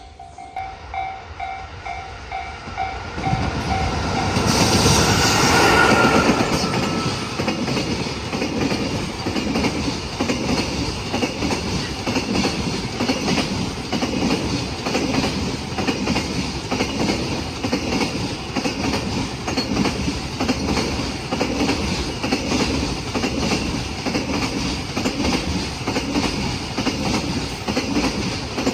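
Japanese level-crossing warning bell ringing in even pulses for the first few seconds, then a freight train arrives: the locomotive passes loudest about five seconds in, followed by a long run of freight wagons whose wheels clack over the rail joints in a steady rhythm.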